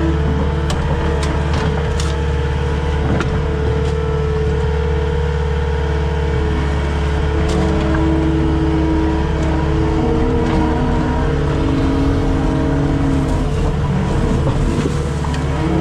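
Skid steer engine running steadily under work, heard from the operator's seat, with a steady whine whose pitch shifts near the end. A few sharp knocks come through, mostly in the first four seconds.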